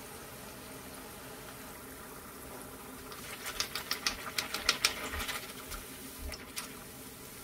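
Batter on a metal mold crackling and spattering in hot oil in a wok as it starts to deep-fry into a lacy sesame cake (bánh rế). There are dense sharp pops for about three seconds, starting around three seconds in, over a steady faint hum.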